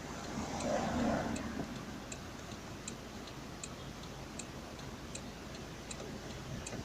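Daewoo Nexia's flasher relay clicking at an even pace, about four clicks every three seconds, over the steady low rumble of the car's cabin at idle in traffic. A brief louder swell comes about a second in.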